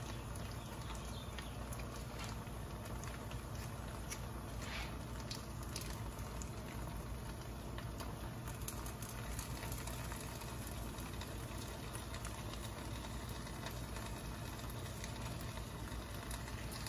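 Faint steady low hum and hiss of a pot heating over a gas burner, with a few light crinkles from a plastic sauce pouch being squeezed.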